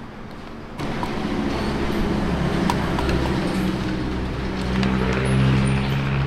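A motor vehicle's engine running close by with a steady low hum. It comes in suddenly about a second in, and a few light clicks sound over it.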